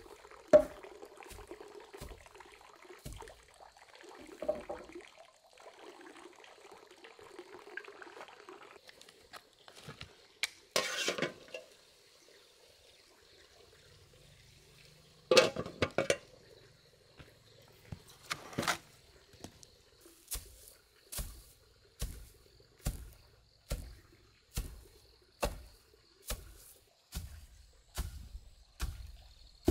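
Long wooden pestle pounding rice stalks in a wooden hand mortar, heavy thumps in a steady rhythm of about one stroke every 0.8 s through the second half. A metal pot lid clanks loudly around the middle, when it is lifted off a steaming pot over the fire.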